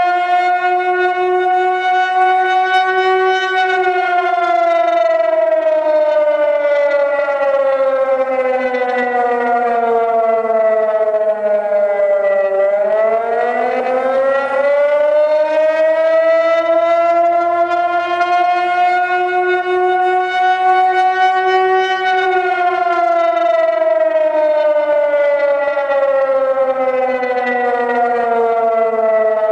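Electronic siren tone sounding a slow wail, buzzy with many overtones. The pitch climbs briefly, glides down to a low point about halfway, climbs back up, and starts falling again in the last several seconds.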